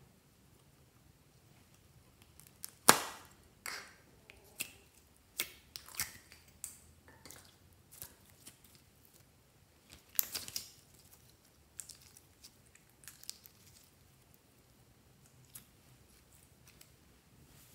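Slime being squeezed and pulled by hand from a small plastic container, making scattered sticky pops and squelches, with a sharp click about three seconds in.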